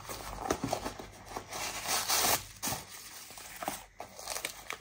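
Tissue paper rustling and crinkling in irregular bursts as packing paper is pulled out of a new shoe.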